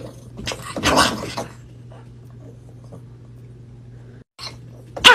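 A small dog barking, once about a second in and again with a short, sharp bark near the end, over a steady low hum.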